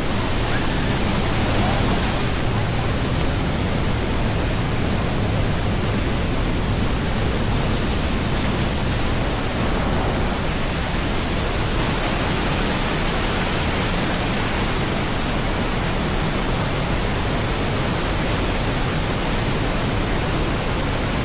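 Steady, loud rush of a waterfall, falling water filling every pitch with an even noise.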